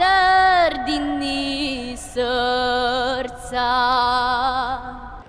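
A young girl singing a traditional Croatian folk song a cappella: four long held notes with vibrato, short breaths between them, fading out near the end.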